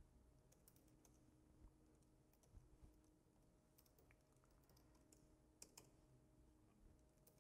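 Near silence, broken by a handful of faint, scattered keystrokes on a computer keyboard as a terminal command is typed.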